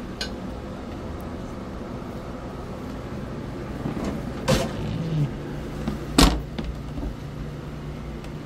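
Galley cabinet doors and a pull-out wire basket rack being slid and shut: a few light clicks and two sharp knocks, about four and a half and six seconds in, the second the loudest, over a steady low hum.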